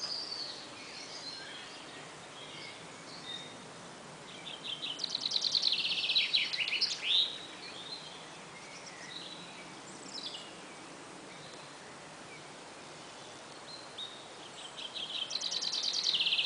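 A songbird sings a high, rapid trill that speeds up over two to three seconds and ends in a few sweeping, laser-like notes. The song comes twice, once a few seconds in and again near the end, with faint scattered chirps between over a steady outdoor hiss.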